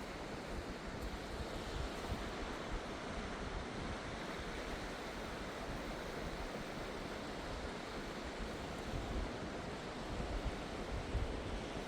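Surf washing onto a beach, a steady rush of waves, with low wind rumble on the microphone.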